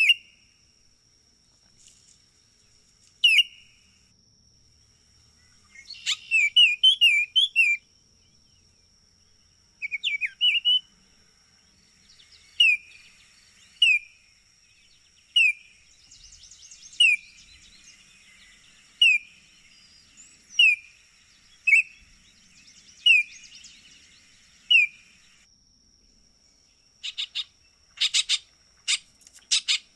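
Baltimore oriole calling: short whistled notes, first in a few quick clusters, then single notes repeated about every one and a half seconds. Near the end comes a rapid, harsh chatter call.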